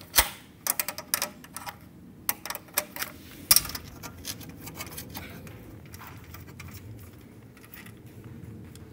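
Metal clicks and clinks of a 10 mm open-end wrench on the mounting nuts and sheet-metal bracket of an air conditioner's fan motor. A quick irregular run of them comes in the first few seconds, the loudest about three and a half seconds in, then only faint handling.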